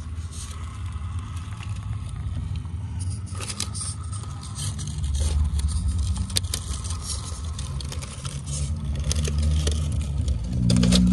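Small-scale HobbyPlus CR18-P Evo Pro RC rock crawler's electric motor and gearbox whirring as it crawls over boulders. Its tires scrape and click on the rock throughout, and the drive hum grows stronger near the end.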